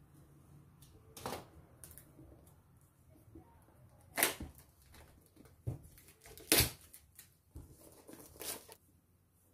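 Seal stickers on a cardboard smartphone box being slit with a utility knife and peeled off, giving about five short, sharp tearing and scraping sounds. The loudest come about four and six and a half seconds in.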